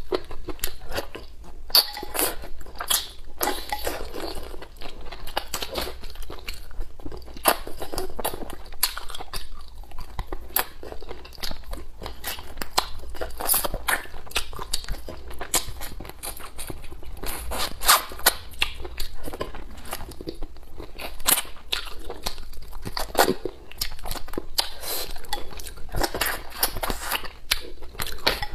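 Close-miked eating: a person chewing and sucking on pieces of stewed chicken from a soup, with many quick, irregular wet smacks and clicks of the mouth.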